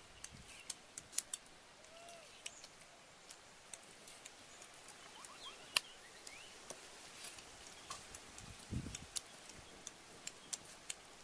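Knife cutting raw chicken on a wooden chopping block: faint, scattered sharp clicks and taps of the blade, with a dull knock about nine seconds in. A few faint bird chirps in the background.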